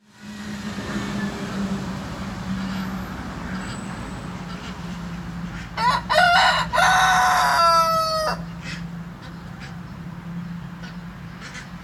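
Rooster crowing once, about six seconds in: a loud call of several quick parts ending in a long held note, lasting about two and a half seconds. A steady low hum and background noise run under it.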